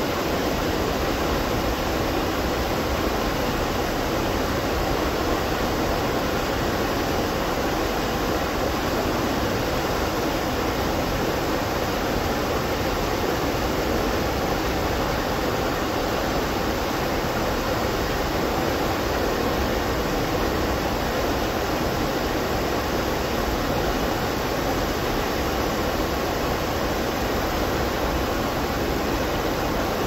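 Water pouring over a curved dam spillway and crashing onto rocks in the foaming pool below: a steady, unbroken rushing.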